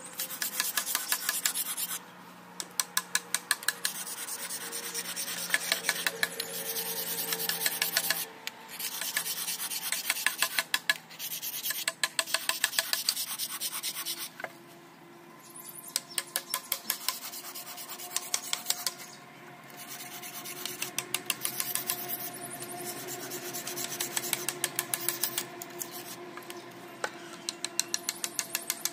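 Hand filing: a file scraping in quick back-and-forth strokes, about five a second, in runs of a few seconds broken by short pauses.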